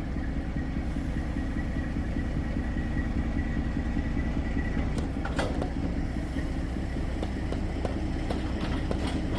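A heavy vehicle engine running steadily with a low rumble. A thin steady whine sits over it for about the first half, and several sharp knocks come from about five seconds in onward.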